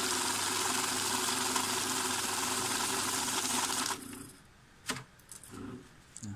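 Secure LD-26M banknote counting machine feeding a stack of notes through, a steady whir of the motor with the rapid riffle of paper, counting about a hundred notes. It stops suddenly about four seconds in, and a single sharp click follows about a second later.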